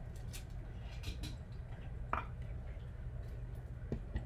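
A few light clicks and taps as a pencil and a triangular scale ruler are set down on drafting paper, over a steady low hum.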